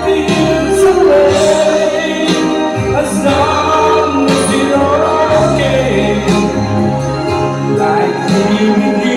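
A man singing into a microphone over a karaoke backing track, his voice amplified through the bar's sound system.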